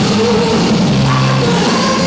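Live rock band playing loud: electric guitar, bass and drums, with a woman's voice singing over them. Heard through a poor, harsh audience recording.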